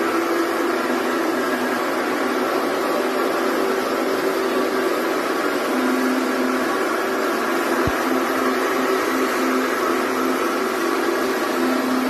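Single-disc rotary floor machine scrubbing a carpet: a steady motor hum with a hiss from the rotating brush on the pile. One brief click about eight seconds in.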